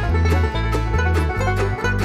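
Upbeat background music with plucked strings over a steady, bouncing bass beat.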